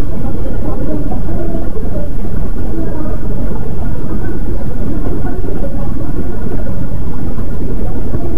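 Loud, steady low rumble of a busy underground train station platform, with a faint murmur of crowd voices.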